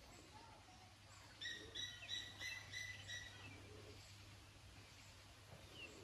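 A bird calling outdoors: a faint run of about six short, evenly repeated high notes, roughly three a second, lasting about two seconds, with a brief falling whistle near the end.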